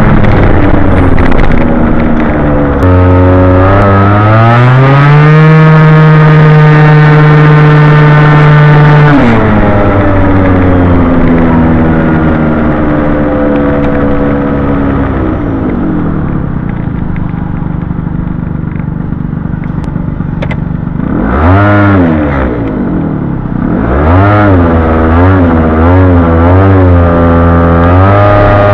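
Honda Gyro Canopy scooter's two-stroke engine running through an aftermarket Moto Repair muffler, heard from the rider's seat while riding. It revs up a few seconds in and holds steady, then falls away slowly as the scooter slows. Past the middle it revs sharply, dips and climbs again to a steady pitch near the end.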